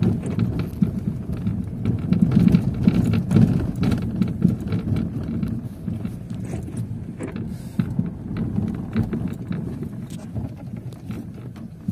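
A car's low road rumble heard from inside the cabin as it drives over a rough, potholed dirt road, with frequent knocks and rattles from the tyres and suspension hitting bumps. It is loudest about two to four seconds in.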